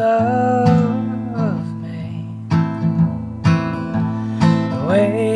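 Acoustic guitar strummed and picked steadily under a man singing a slow melody in long held notes that slide in pitch: an unfinished original song played live.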